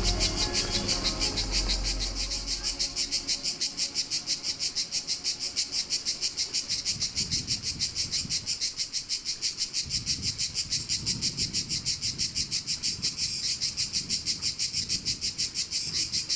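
Cicadas singing in a loud, evenly pulsing chorus, about five pulses a second. Background music fades out in the first couple of seconds.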